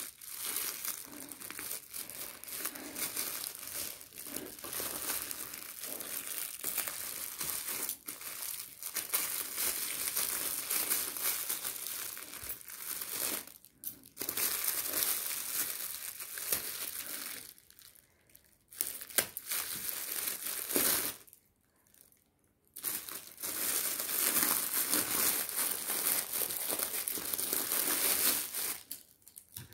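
Shiny metallic gift wrap and foil crinkling and rustling as it is snipped with scissors and pulled apart by hand. It goes in long stretches, with short breaks about halfway through and a longer lull about three-quarters in.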